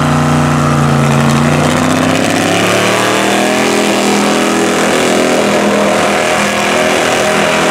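Jeep mud truck's engine revving hard at full throttle, its pitch climbing about three seconds in and then holding high, over a steady hiss of spinning mud tyres and spraying mud.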